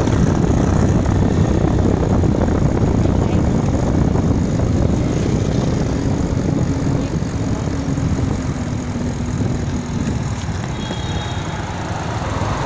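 Noise of riding a bicycle along a city street: wind rushing over the microphone mixed with passing traffic, easing off a little toward the end.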